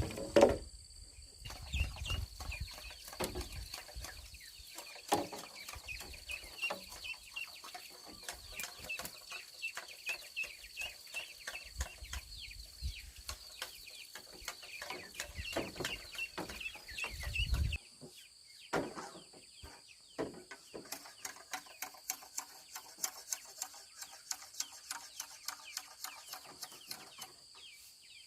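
Chickens clucking over many light knocks and taps, with a steady high-pitched hum behind.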